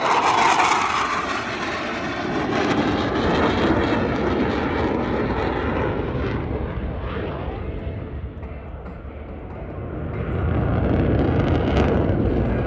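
Jet noise from F/A-18 Super Hornet ('Rhino') fighters passing at high speed in a pitch-out. The roar is strongest at the start, eases off toward the middle and builds again about three-quarters of the way through.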